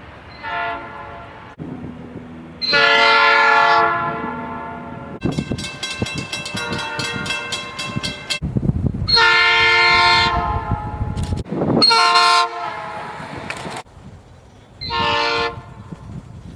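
Train horns sounding five blasts: a short one, two long ones, then two short ones. Between the first long blast and the second comes a quick, even clatter of train wheels.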